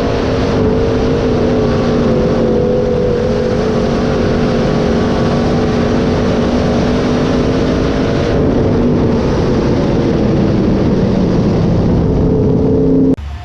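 Dirt-track sport mod race car's V8 engine running hard on track at a nearly steady pitch that wavers slightly and sags a little in the second half. It cuts off abruptly near the end.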